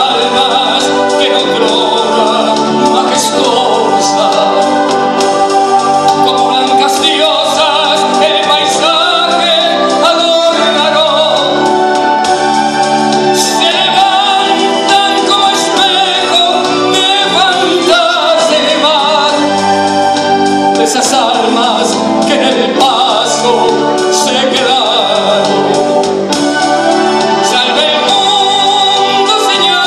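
A man singing a slow song into a microphone over instrumental accompaniment.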